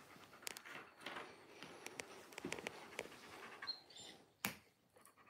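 Faint, scattered small clicks and light taps as a golden retriever is handed treats from a box, with one sharper knock about four and a half seconds in.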